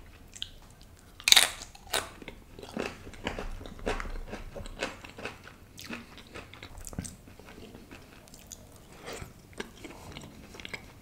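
Close-miked bite into a crisp piece of bread loaded with pav bhaji, with one sharp crunch about a second in, followed by chewing with many small crunches.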